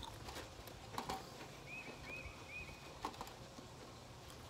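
A small bird calling a quick run of four short chirps about two seconds in. Two sharp clicks come about a second in and again about three seconds in.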